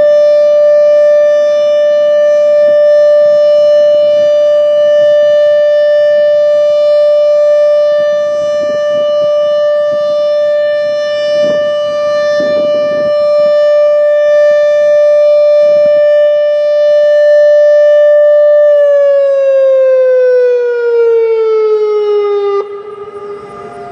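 Federal Signal Modulator 8032B electronic warning siren sounding its steady alert tone at about 590 Hz, rich in overtones, so that it sounds like a 10-port siren. About three quarters of the way in it winds down, falling in pitch for about four seconds, then cuts off suddenly. Fainter distant sirens carry on sounding after it.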